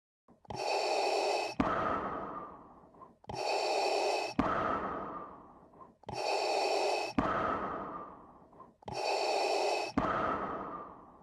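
Slow, heavy breathing through a gas mask: four breaths about three seconds apart. Each is a hiss that ends in a sharp click, followed by a longer breath that fades away.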